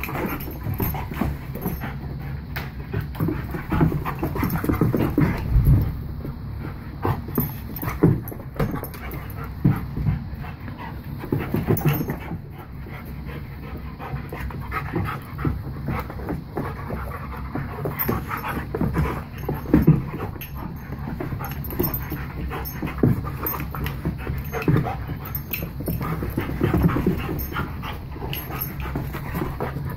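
Several dogs play-wrestling: panting and scuffling against each other, with irregular louder bumps.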